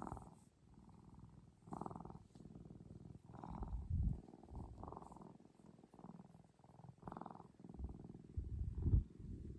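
Black cat purring steadily in a rhythmic in-and-out cycle of breaths while being affectionate, with two louder low rumbles, about four seconds in and again near the end.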